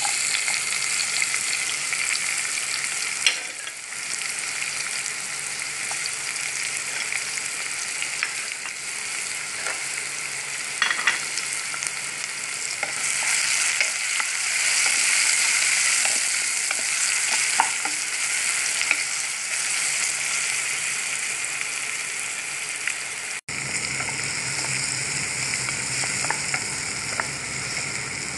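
Chopped onion, garlic, chilli flakes and curry leaves sizzling in hot oil with mustard seeds, the frying starting suddenly as they are tipped into the pan. It keeps going as the mixture is stirred with a wooden spoon, with a few light knocks of the spoon against the pan.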